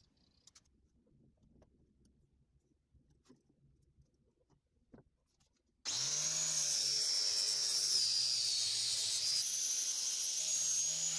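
Faint handling clicks, then about six seconds in an angle grinder starts grinding at a rusty steel door hinge clamped in a vise: a loud, steady high whine over a low hum that stops abruptly at the end.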